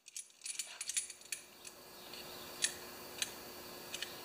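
Scattered light clicks and sharp little taps, a cluster at first and then a few single ticks, from hands handling a plastic Honda GX160 recoil starter and its rope handle.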